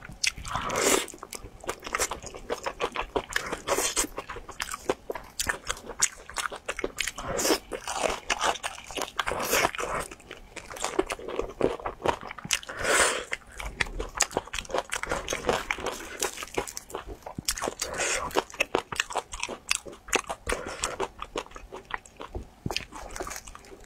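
Close-miked biting and chewing of crispy breaded fried chicken drumsticks: a steady run of crisp crunches from the coating, with louder bites every few seconds.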